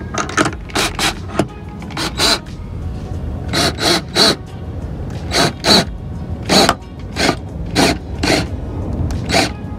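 DentDial glue-pulling tool being cranked by its wheel, its threaded pulling rod making about seventeen short, gritty strokes at an uneven pace, some in quick pairs. The pull draws up a multi-tab glue bar stuck to a dented car fender, lifting the dent.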